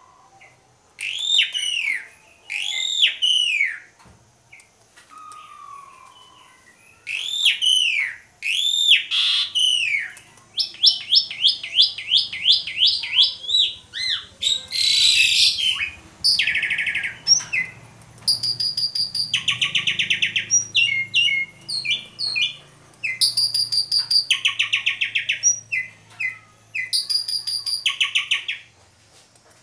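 Asian pied starling (jalak suren) in full song, a loud, varied song. It opens with arched, down-slurred whistles in two pairs separated by a short pause, then a rapid run of short notes at about four a second, a harsh burst, and a series of buzzy rattles and chattering trills.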